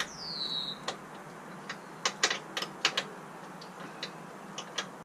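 Hand ratchet clicking while bracket bolts are snugged up: irregular sharp clicks, most of them bunched in the middle.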